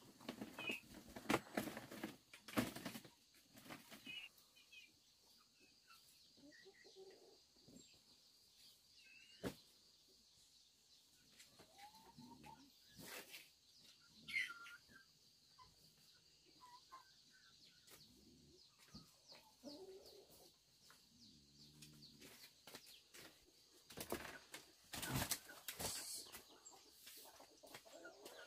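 Chickens clucking now and then, with a few high bird chirps and scattered sharp knocks, the loudest cluster of knocks coming near the end.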